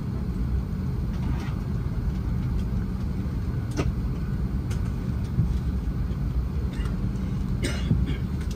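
Steady low rumble of an Airbus A330-300's cabin on the ground, with a few short clicks and knocks.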